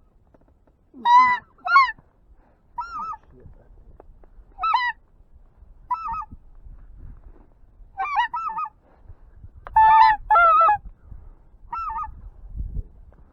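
Goose honks, about ten short two-note calls spaced irregularly, some in quick pairs, loudest about a second in and again near ten seconds.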